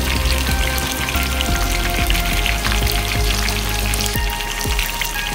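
Hot oil sizzling steadily with fine crackles as a whole chicken fries in a pot, with music playing underneath.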